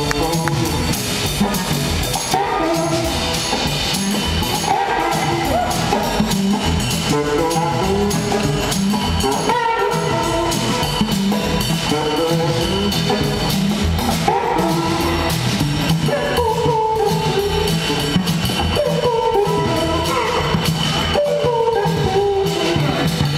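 Blues-rock band playing live: electric guitars, bass guitar and drum kit, loud and steady.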